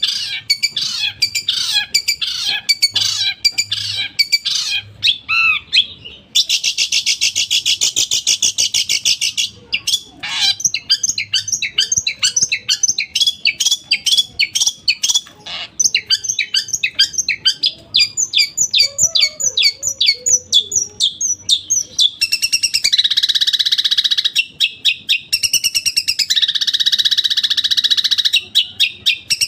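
Long-tailed shrike (cendet) singing a loud, fast, unbroken run of harsh chattering notes and rapid rattles, then harsh buzzy screeches repeated with short gaps over the last seven seconds.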